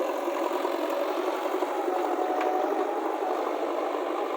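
JCB backhoe loader's engine running steadily at idle, with a light rattle.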